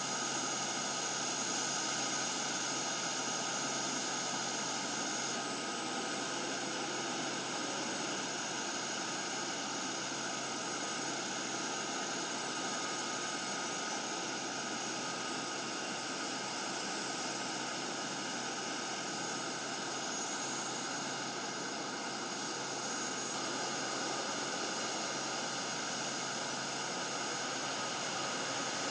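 Military helicopter's turbine engines running steadily, a constant rushing noise with several high, unchanging whines.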